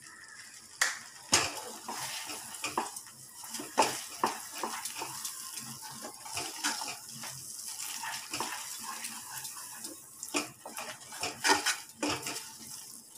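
Wooden spatula stirring and scraping thick wheat halwa around a metal pan, with irregular knocks against the pan's sides and bottom, over a light sizzle of ghee as the halwa cooks down and thickens.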